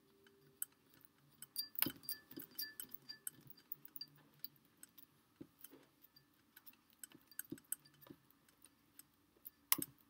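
Light, irregular metal clicks and ticks from a microphone stand and shock mount being handled and screwed tight, with a sharper click about two seconds in and another near the end.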